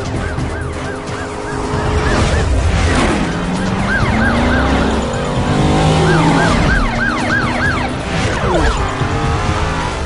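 Police siren yelping in fast rising-and-falling cycles, about four or five a second, in three bursts, over car engine sounds with a couple of passing whooshes and background music.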